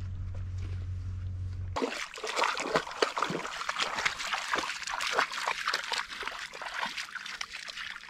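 A low steady hum that cuts off abruptly about two seconds in, then water splashing and trickling with many small, quick splashes.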